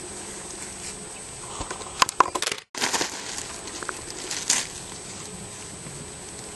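Foil and latex helium balloons crinkling and bumping as a horse noses and mouths them. A cluster of sharp crackles comes about two seconds in, with a very brief cutout in the middle of it, and one more loud crackle about four and a half seconds in.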